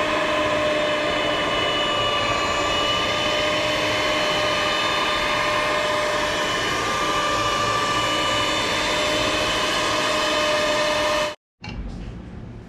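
Handheld electric mixer running at steady speed, its beaters whirring through brownie batter in a stainless steel bowl, with a constant high whine. The motor cuts off near the end.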